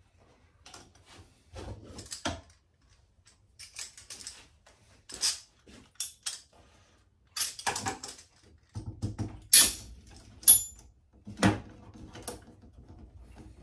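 Small bar clamps and hardwood strips being handled on a wooden workbench: scattered clicks, knocks and light scrapes, busiest in the second half, with one brief metallic ring.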